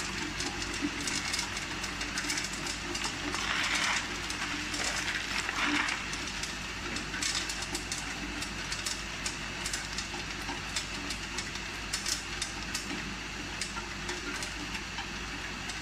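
Tube ice being harvested: short cylinders of ice dropping from a tube ice machine's discharge chute and clinking and clattering onto a heap of ice in a plastic bucket, many small clicks over the machine's steady running. A stretch of louder hiss comes about three to six seconds in.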